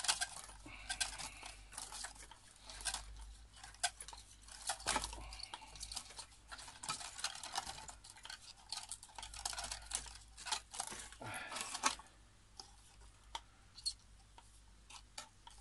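Hands working in a ceramic bonsai pot: a dense run of scratchy clicks and scrapes against the ceramic that stops about twelve seconds in, leaving a few faint ticks.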